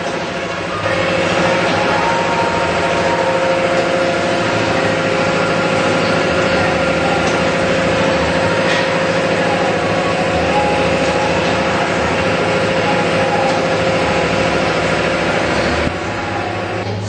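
Conveyor dryer for screen printing running, a steady mechanical hum with a held tone. It sets in about a second in and drops off near the end.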